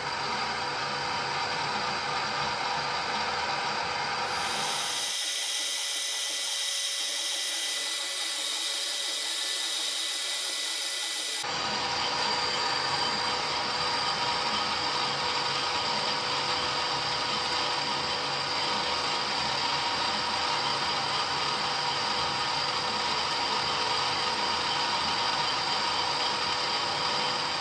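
Weipert WG 425 metal lathe running while a boring bar cuts the bore of a metal bearing housing: a steady machine whine with cutting noise. The sound changes abruptly about five seconds in, becoming thinner and hissier, and returns about six seconds later.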